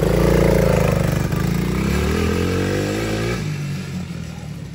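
Child's quad ATV engine revving as it pulls away, then fading as the quad rides off, its higher tones dropping away about three and a half seconds in.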